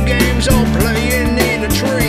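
Background music: a rock song with singing over guitar, bass and drums.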